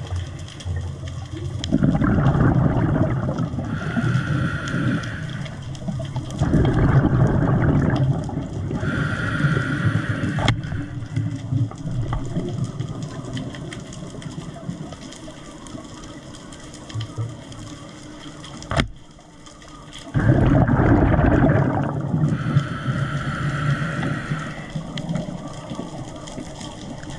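Water sloshing and rushing around a diver in the sea, in loud surges of a couple of seconds, quieter for a stretch in the middle.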